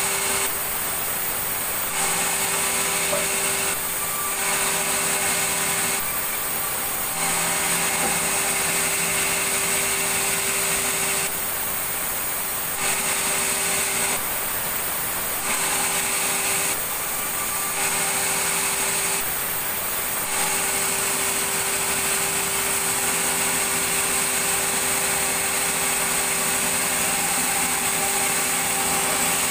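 Power saw running and cutting wood, a steady mechanical whine over a hiss of sawing. The sound changes abruptly again and again, dropping to a different tone for a second or so at a time.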